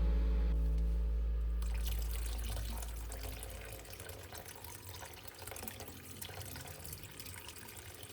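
Water running from a tap and splashing in a sink, with background music fading out over the first few seconds.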